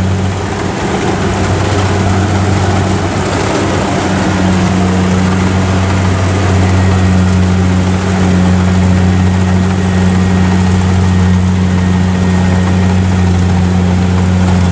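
Kubota DC70 combine harvester's diesel engine running steadily while the machine harvests rice, a constant low drone that holds the same pitch throughout.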